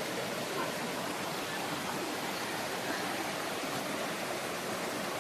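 Steady rush of water flowing over the rocks of a jungle stream below a waterfall.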